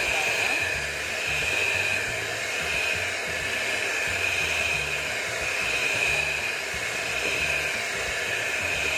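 Philips electric hand mixer running steadily with a whine, its beaters churning through chocolate cake batter.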